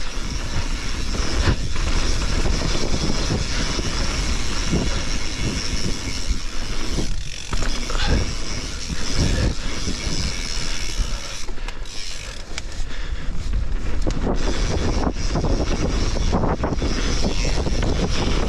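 Mountain bike riding fast down a dirt trail: wind buffeting the mic over a steady rush of tyres on dry, loose dirt, with frequent knocks and rattles from the bike over bumps.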